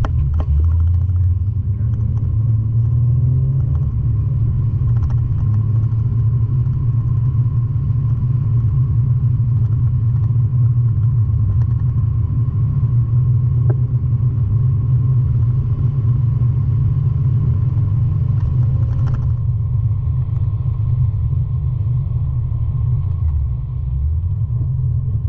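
Steady low rumble of a Nissan 350Z driving, heard from inside the car: engine and road noise, with a short dip in level near the end.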